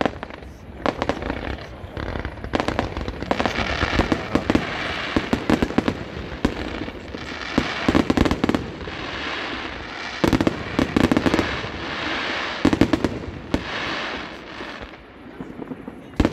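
Aerial fireworks display: shells bursting in quick succession with sharp bangs, and long stretches of crackling from glittering stars that swell and fade in waves every few seconds.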